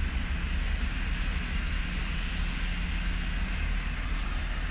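Low, steady drone of two Class 66 diesel locomotives' two-stroke V12 engines as they move away, with an even hiss over it.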